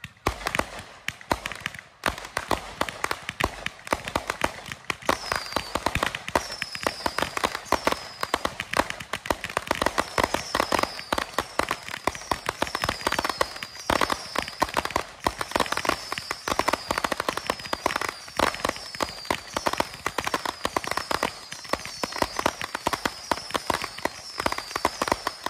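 A rack of large and small Roman candles firing together, giving rapid, continuous popping. From about five seconds in, short whistles falling in pitch repeat over the popping.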